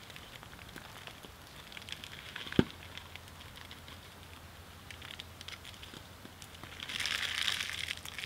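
Small wood fire crackling in a titanium tent stove, with scattered small pops. There is one sharp knock about two and a half seconds in, and near the end a louder crinkling rustle as a plastic food packet is handled.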